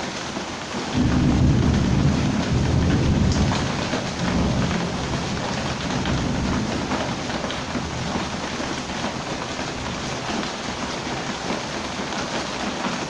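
Heavy rain falling steadily, with a deep rumble of thunder that starts suddenly about a second in and dies away over the next several seconds.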